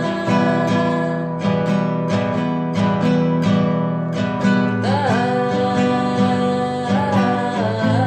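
Background music: acoustic guitar playing steady plucked chords, with a melody line above that bends in pitch around the middle.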